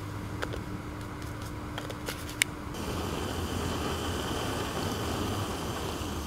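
Backpacking canister stove burner hissing steadily under a steaming mug, with a few light clicks in the first half. About three seconds in the hiss gets louder and brighter, as the stove valve is turned the wrong way, up instead of off.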